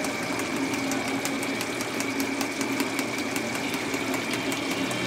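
Biryani masala simmering in a large aluminium pot, with frequent small pops and crackles, over a steady machine hum with a high whine.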